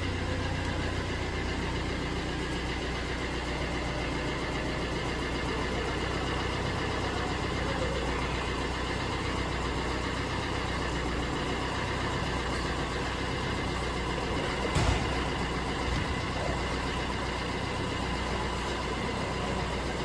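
Car engine idling steadily, with one short sharp click about fifteen seconds in.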